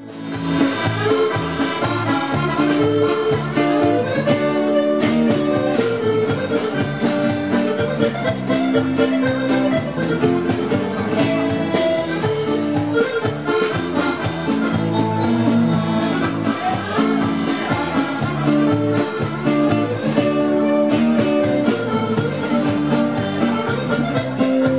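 Accordion-led dance-band music with a steady beat, fading in right at the start.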